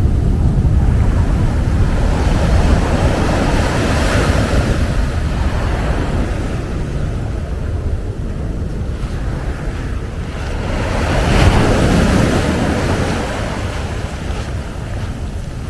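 Ocean waves breaking and washing up the beach, swelling twice, about four seconds in and again past the middle. Wind rumbles on the microphone underneath.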